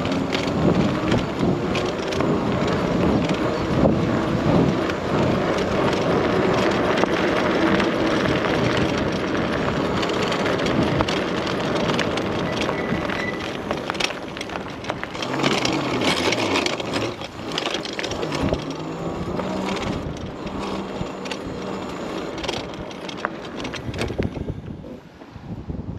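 Electric bike being ridden: a steady rush of wind and tyre noise with many small knocks and rattles, and a faint motor whine that rises and falls with speed.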